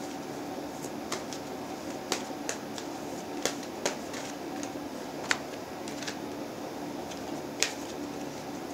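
Tarot cards being shuffled and handled, with a few irregular sharp snaps and taps of the card edges, over a steady background hum.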